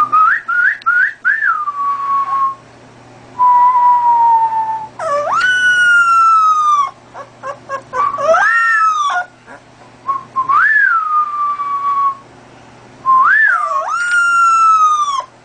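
Young puppy howling: a series of about six high-pitched howls with short gaps, each rising quickly and then held while it slides slowly down in pitch.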